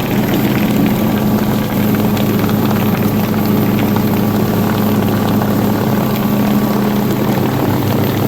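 Four Winns motorboat's engine running steadily under way while towing a tube, a low, even drone that holds its pitch.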